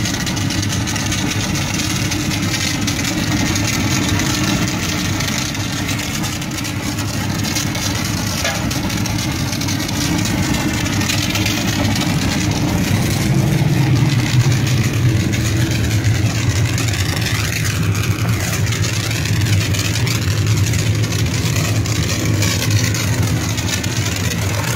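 Jenny hot-water pressure washer running steadily, its pump and burner going, with the hiss of the high-pressure spray from the wand. The low hum deepens and grows a little louder about halfway through.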